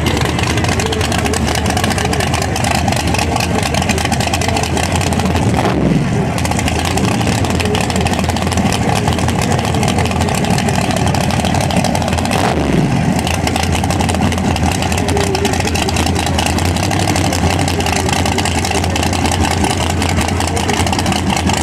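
Drag racing cars' high-powered engines running loudly, with two falling pitch sweeps, about six and thirteen seconds in, as engines come off the throttle or pass by.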